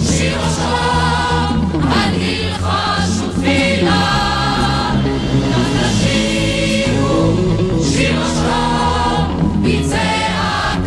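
Background music: a choir singing over a sustained instrumental accompaniment.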